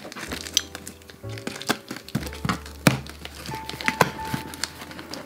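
Packing tape being picked at and torn off a cardboard parcel, with scratching and several sharp clicks and snaps, over background music.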